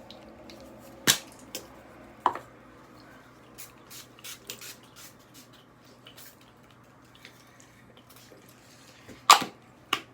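A few short spritzes from a handheld spray bottle: one about a second in, another a second later, and two close together near the end, the first of those the loudest. Small handling clicks and taps fall between them.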